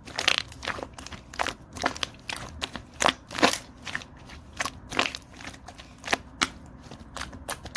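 Orange glitter slime squished and stretched by hand, giving irregular sharp crackling pops of trapped air, about one or two a second.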